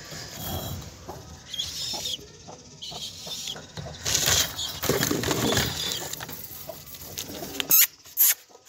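Pigeons cooing and flapping their wings while their wire cage is opened by hand, with two sharp knocks close together near the end.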